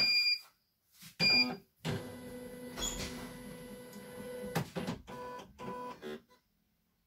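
CNY E900 embroidery machine starting up: a beep, a shorter beep about a second later, then the embroidery unit's motor whirring steadily for about three seconds as it drives the hoop carriage to its start position, a click, and two short beeps.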